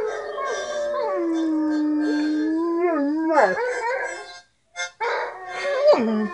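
Dog howling along to music, one long steady howl that wavers and falls away, then after a short pause a second howl that drops sharply in pitch near the end.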